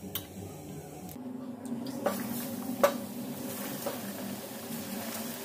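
Batter-coated potato vadas deep-frying in hot oil in a kadai: a steady sizzle with a few sharp pops, starting about a second in. Before it, a brief wet squish of a hand working a ball through thick besan batter.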